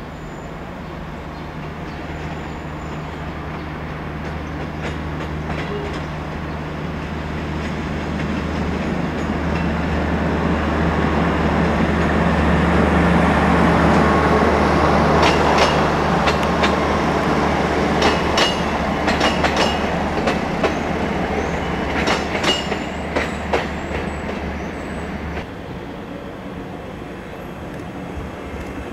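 Passenger multiple-unit train approaching and passing, its running noise swelling to its loudest about halfway. As it runs on, its wheels click repeatedly over rail joints, and a low hum under it stops abruptly near the end.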